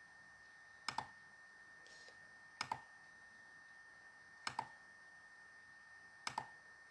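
Four computer mouse clicks, each a quick double click of press and release, spaced about two seconds apart. Faint hiss and a thin steady high tone run underneath.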